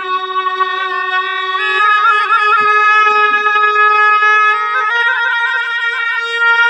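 Tibetan double-reed shawm (gyaling) playing a slow ritual melody of long held notes with quick ornaments. It moves to a new note about two seconds in and again near five seconds.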